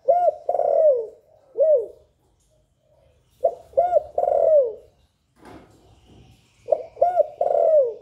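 Spotted dove cooing: three phrases about three and a half seconds apart, each a couple of short coos followed by a longer note that falls in pitch.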